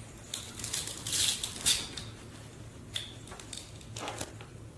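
Scattered light clicks, taps and short scraping rustles of plastic toy food and utensils being handled.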